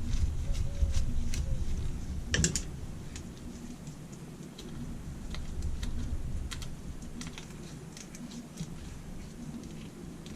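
Scattered small clicks and taps of tools and metal parts handled while a Holley four-barrel carburettor's fuel bowl is being unscrewed and taken off, with low handling bumps in the first couple of seconds and one louder clank about two and a half seconds in.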